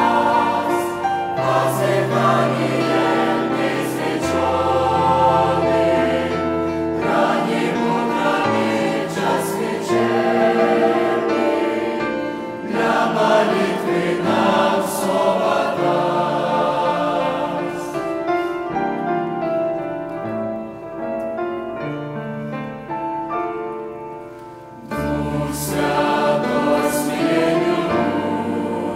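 Church choir singing a Russian-language hymn in parts, in long held chords over a low bass line. The sound thins and grows quieter about two-thirds of the way through, then the full choir comes back in near the end.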